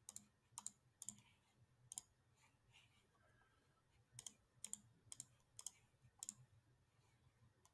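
Faint clicks of a computer pointer button, each a quick press-and-release pair, selecting reCAPTCHA image tiles. There are four in the first two seconds, a pause, then five more between about four and six and a half seconds in.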